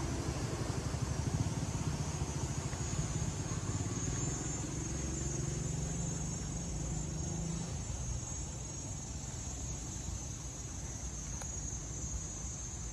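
A motor vehicle engine runs, rising slightly in pitch, then fades away about eight seconds in, over a steady high chirring of insects.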